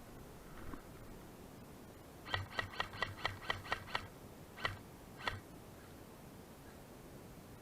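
Airsoft gun firing: a quick string of about eight sharp shots, about five a second, then two more single shots.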